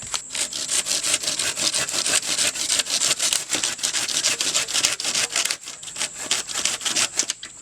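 Wood being sawn by hand with fast, even strokes, about six a second, easing off a little near the end. A steady high insect drone runs underneath.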